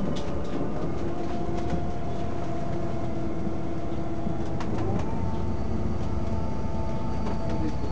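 Inside a Scania double-decker city bus under way: the Cummins engine and ZF Ecolife automatic drivetrain give a steady drone with a whining tone that steps up in pitch about five seconds in. Light rattles and clicks from the bus body and fittings come and go.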